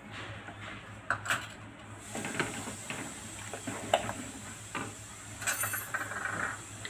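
Wooden spatula stirring sugar into wet cracked-wheat mixture in an aluminium pressure cooker, with irregular scrapes and knocks against the pot.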